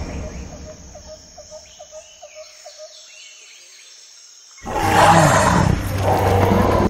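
A dinosaur roar sound effect starts suddenly about two-thirds through and is loud and rough. Before it, in a quiet stretch, there is a quick run of ticks, about five a second, and faint bird-like chirps.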